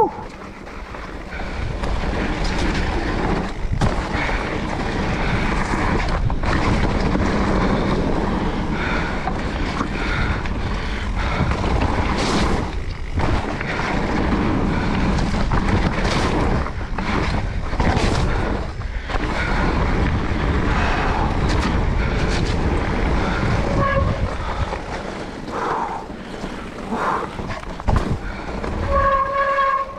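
Riding noise from a Specialized Turbo Levo electric mountain bike descending a wet, muddy trail. Wind buffets the chest-mounted action camera's microphone over the rush of tyres on dirt and gravel, with frequent knocks and rattles from the bike over bumps and roots, and a short pitched whine near the end.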